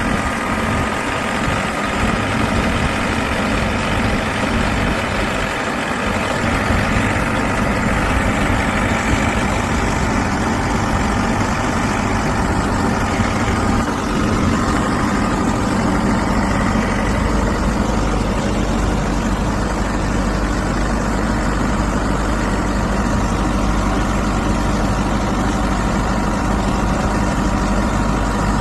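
A heavy truck engine running steadily, with a deeper low hum setting in about seventeen seconds in.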